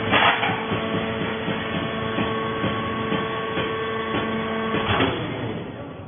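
Hydraulic plant-fibre baler running with a steady mechanical hum and whine. There is a loud knock just after the start and another about five seconds in, after which the steady running stops and the sound drops away.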